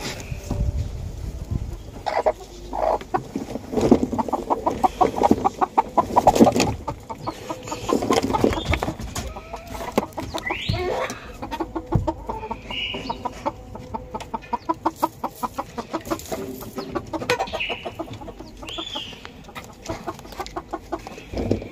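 A flock of chickens clucking, with rapid runs of clucks that overlap and come and go. There is one brief rising call about halfway through.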